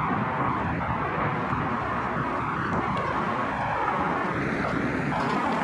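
Diesel freight locomotive approaching at low speed, its engine making a steady rumble.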